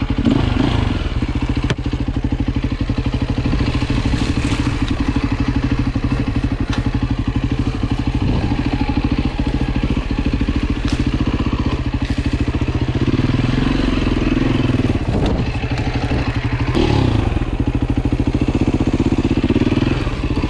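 Beta RR 450 enduro dirt bike's single-cylinder four-stroke engine running while being ridden. The throttle swells two or three times, about two-thirds of the way in and again near the end, and there are a few light knocks from the bike over the ground.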